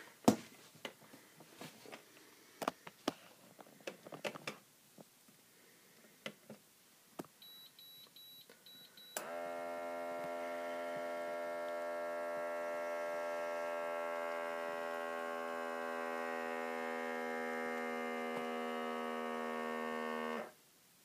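Automatic blood pressure monitor: a few short beeps as its button is pressed, then its cuff-inflation pump motor runs with a steady buzzing hum for about eleven seconds and cuts off suddenly. Before that, rustling and a sharp knock as the wearer stands up.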